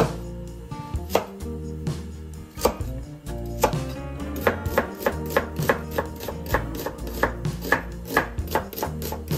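Kitchen knife cutting a red onion on a cutting board: a few separate cuts, then a steady run of slices, about three a second, from about halfway through.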